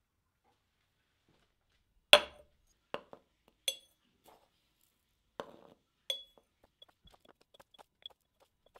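Five sharp metallic clinks with a brief ring, the loudest about two seconds in, as small metal objects strike a ceramic cup, then a run of soft quick ticks as dry yerba mate is tipped into the cup from a metal spoon.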